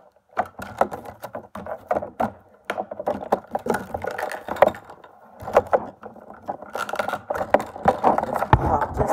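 Clear plastic blister packaging crinkling and clicking as it is handled, an irregular run of crackles with a brief lull midway.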